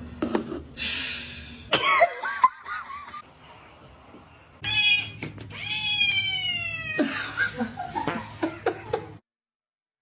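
A cat meowing: a few short calls about two seconds in, then one long, drawn-out meow of about two seconds that falls slightly in pitch. The sound cuts off abruptly near the end.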